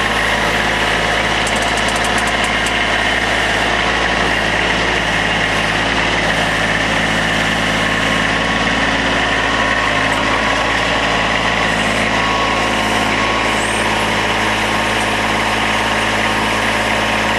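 Backhoe engine running steadily at an even level while the machine works its hydraulic digging controls.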